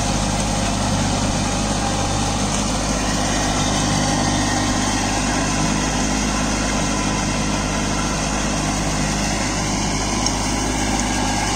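Kubota Neostar B2441 mini tractor's three-cylinder diesel engine running steadily under load, driving a 20-blade rotary tiller through flooded paddy mud for puddling.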